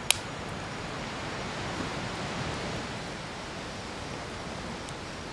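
Steady rushing of a flowing creek, with one sharp click just after the start.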